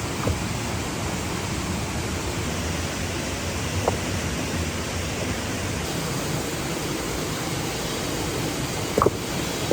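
Steady rushing of a waterfall. A brief sharp sound comes just after the start and another about four seconds in, with the loudest near the end.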